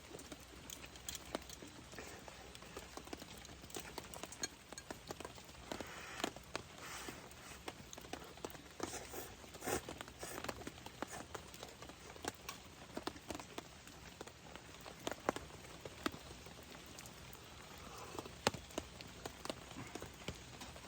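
Rain pattering, with scattered drops tapping irregularly.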